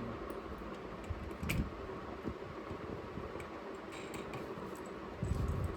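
Workshop noise: a steady background hum with scattered light clicks, a dull knock about a second and a half in, and a heavier low thump near the end.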